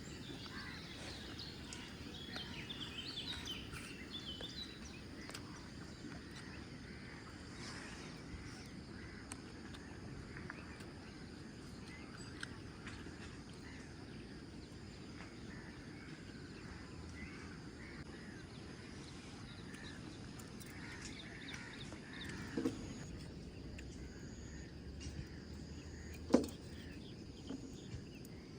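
Outdoor ambience: birds chirping now and then over a steady faint insect drone, with two sharp knocks near the end, the second one louder.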